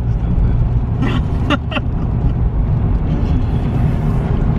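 Steady low rumble of a car's engine and road noise heard from inside the cabin while driving, with a brief voice sound about a second in.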